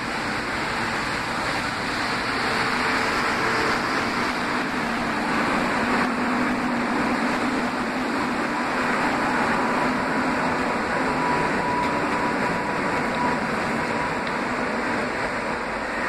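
WAP7 electric locomotive and then its passenger coaches rolling slowly past close by on departure, a steady rumble and hiss of wheels on rail. A faint steady whine comes in about halfway through.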